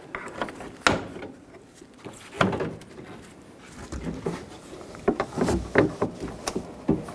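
Plastic grille clips on a Chevy Silverado 2500HD being pried and snapped loose by hand: separate sharp clicks and knocks about a second in and around two and a half seconds, then a busier run of clicks and rattles near the end.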